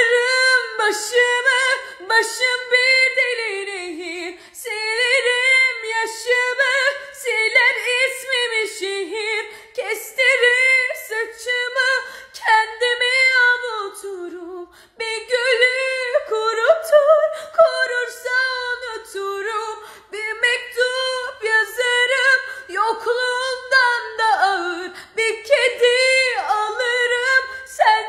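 A woman singing solo a cappella in Turkish, a slow pop ballad in long held phrases, with a short break for breath about halfway through.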